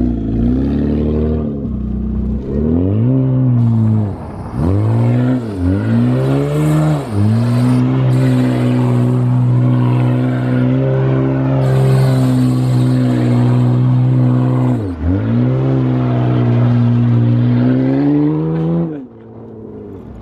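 Mitsubishi Eclipse's engine revving hard at full throttle. The pitch dips and climbs several times over the first few seconds, then holds high and steady for about eight seconds, dips once more, climbs, and drops off near the end.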